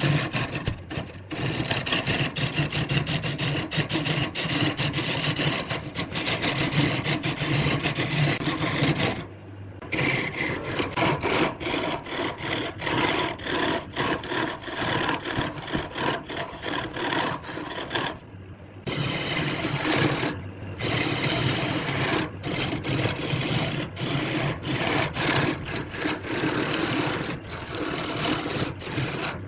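Wood lathe running, with a hand tool scraping and cutting the spinning wood in a continuous rasp over the motor's low hum. The sound drops out briefly twice, about a third and two thirds of the way through.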